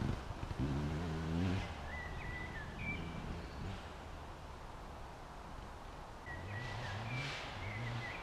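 KTM 200 EXC's single-cylinder two-stroke engine revving up through the gears and fading off among the trees, then heard again, fainter, revving from about six seconds in. Birds chirp briefly in between.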